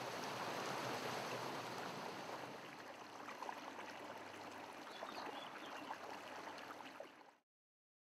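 Mountain torrent rushing over boulders, a steady rush of water that cuts off a little after seven seconds in.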